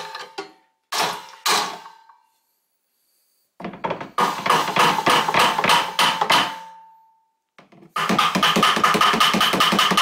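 Hammer striking a screwdriver used as a drift against a small gas generator's rotor to knock it off its tapered shaft. Two blows about a second in, then after a pause two runs of rapid taps with the steel ringing.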